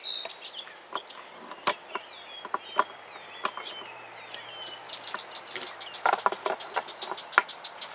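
Scattered sharp clicks and knocks as a strap and its buckle are worked loose from a wooden hive box, with birds chirping and trilling in the background.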